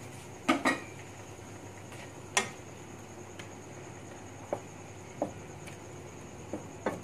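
A wooden spatula and a plate clacking against a wok as fried fish is pushed off the plate and stirred in. It is a string of separate sharp knocks, the loudest two about half a second in and another about two and a half seconds in.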